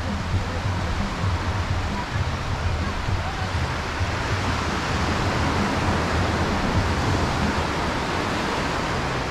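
Ocean surf breaking and washing up the beach, a steady loud rush that swells a little in the second half.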